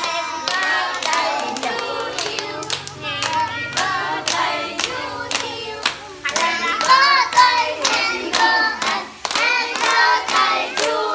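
A group of children and adults singing a birthday song together, clapping in time about twice a second.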